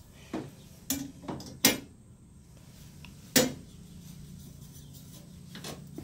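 Sheet-metal panel carrying the boiler's flame sensor clinking and knocking against the metal burner frame as it is handled back into place: about five sharp metallic clanks in the first three and a half seconds, over a steady low hum.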